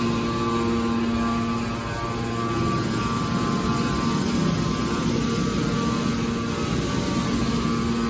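Hydraulic power unit of a scrap metal baler shear running: a steady machine hum with a few held tones, easing slightly a couple of seconds in.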